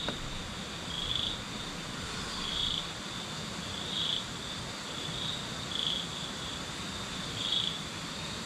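Night-time chorus of calling insects: a steady high-pitched drone, with a short high chirp repeating roughly once a second.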